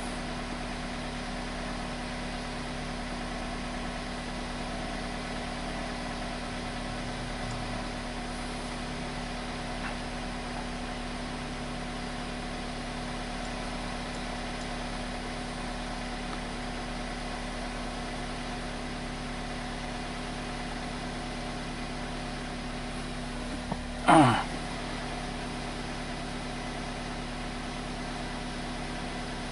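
2002 Toyota Corolla's four-cylinder engine idling steadily. A brief falling squeak cuts in once, about 24 seconds in.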